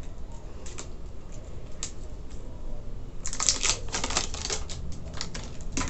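Plastic wrap being cut with scissors and pulled off a small cosmetic tube: a few scattered snips and crinkles at first, then a dense run of crackling crinkles from about three seconds in, with one sharp click near the end.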